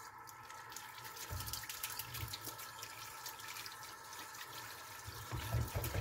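Tap water running and splashing into a sink, with a patter of drops, as a vacuum cleaner part is rinsed under it. A few dull knocks come in between.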